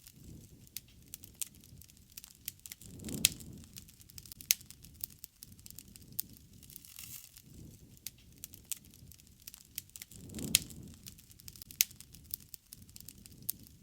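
Wood campfire burning, crackling with frequent sharp pops and snaps. Two brief low rushing swells rise and fade, about three seconds in and again near the ten-second mark.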